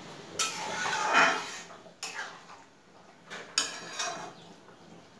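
Metal spatula scraping and clinking against a metal kadai as chicken curry in thin gravy is stirred, with a few sharp clinks about two and three and a half seconds in.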